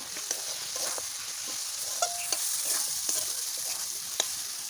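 Dried fish paste, onion and chilli frying in hot oil in a kadai with a steady sizzle, while a spatula stirs and clicks against the pan.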